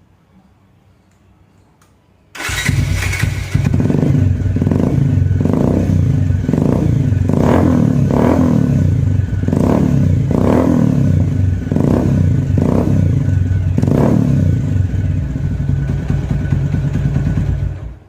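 Bajaj Pulsar 150's single-cylinder engine running through an SC Project aftermarket exhaust with the dB killer removed. It comes in abruptly about two seconds in, then is blipped up and down repeatedly, roughly once a second, before settling near the end.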